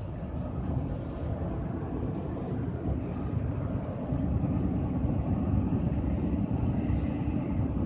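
Steady low rumble of road and engine noise inside a moving car, growing louder about four seconds in.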